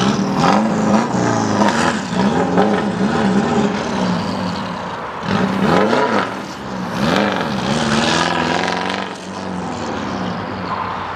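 Toyota Tom's 83C replica race car's engine revving up and dropping back again and again as the car weaves through a cone course, its pitch rising and falling in quick arcs. It grows fainter near the end as the car pulls away.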